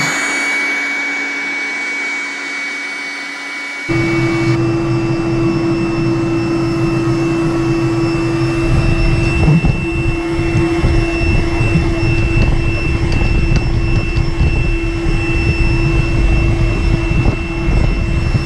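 Trifo Emma robot vacuum cleaner running: a steady motor whine over whirring suction and brush noise. About four seconds in it changes abruptly to a louder run with a low rumble underneath.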